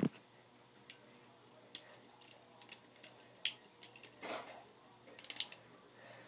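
Faint, scattered light clicks and taps as a homemade fidget spinner is handled and flicked.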